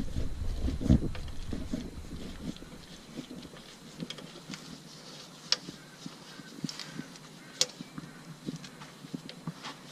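Engine oil draining from the sump drain hole into a drain pan. It is fuller for the first couple of seconds, then fades, with scattered light clicks and taps.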